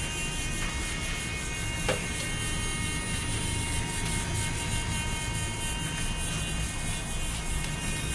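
Small electric motor and gearbox of a miniature RC walking tractor running, a steady buzzing whir.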